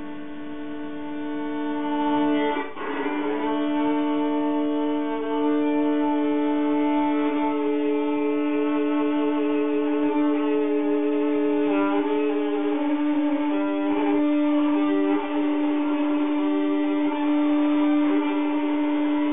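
Solo violin improvising freely, holding a steady low note under higher notes that shift and slide. The sound breaks briefly about three seconds in.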